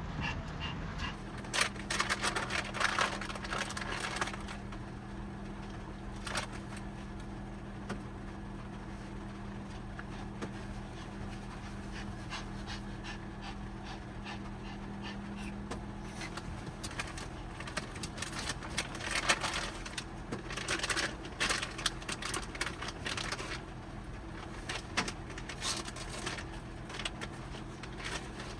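Pomeranian panting in spells of quick rough breaths, over a steady low hum.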